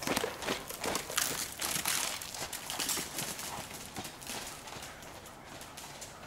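Horse's hoofbeats on soft sand arena footing, a quick run of dull thuds as the ridden horse passes close by, growing fainter over the last couple of seconds as it moves away.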